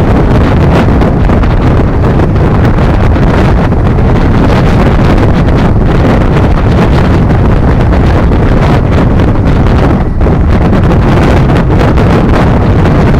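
Wind buffeting the camera microphone on the open stern deck of a car ferry under way. Beneath it is the steady noise of the ferry running and its wake churning.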